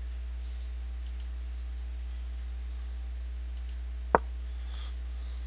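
A few faint mouse clicks, then one loud sharp click about four seconds in as a move is made on an online chess board, the site's piece-move sound, over a steady low electrical hum.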